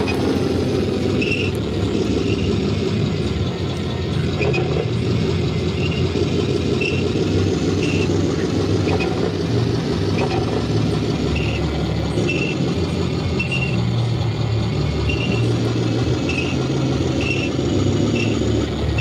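A 1/10-scale RC Sturmtiger model tank driving slowly over dirt and grass: a steady low rumble, with short faint high chirps recurring about once a second.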